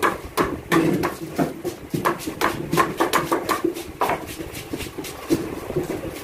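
Fish being chopped by hand on boti blades: irregular, quick knocks and clacks as chunks of fish are pushed through the curved blades and tossed onto aluminium trays.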